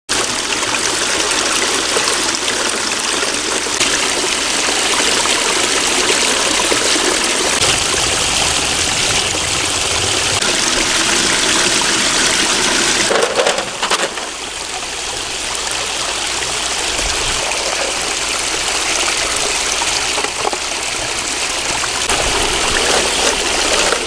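Small waterfall in a stream pouring and splashing steadily, a little quieter a little past halfway through.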